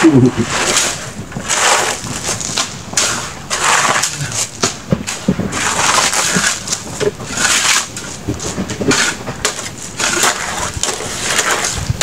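A flat-bladed shovel scraping and crunching into loose gravel, stroke after stroke, roughly once a second.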